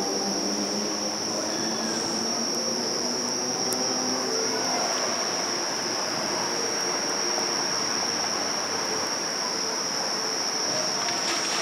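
A steady high-pitched tone that never breaks, over faint low tones that come and go, with a few faint clicks near the end.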